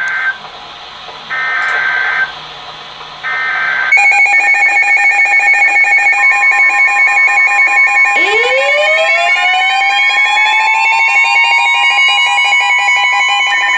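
Emergency Alert System broadcast tones: three short warbling data bursts, about a second each, mark the end of one alert. About four seconds in, a loud electronic alarm of several pulsing tones starts. Around eight seconds in it is joined by a siren sliding up in pitch and then holding steady.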